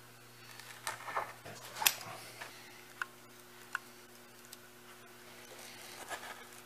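Hobby knife trimming excess screen mesh along a door's screen stop: faint scratching with a few sharp ticks, the loudest about two seconds in. A low steady electrical hum runs underneath.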